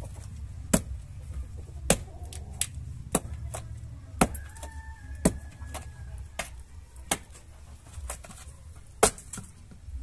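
Sharp, irregular knocks on a split log with an axe wedged in it, about nine of them roughly a second apart, over a low steady rumble.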